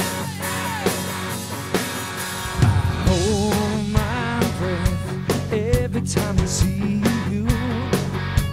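Rock band playing live: electric guitars, bass and drum kit, with a lead vocal that comes in singing about three seconds in.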